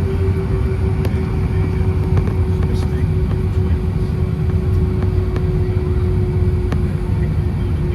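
Airbus A320 cabin noise from a window seat: the engines run with a steady low rumble and a steady hum, and a light knock comes about every two seconds, typical of the wheels rolling over pavement joints while taxiing.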